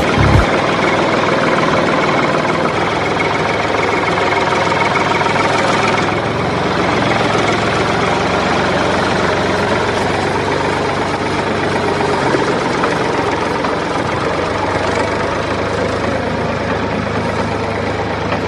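A diesel-type engine idling steadily with a low hum, like a tractor engine.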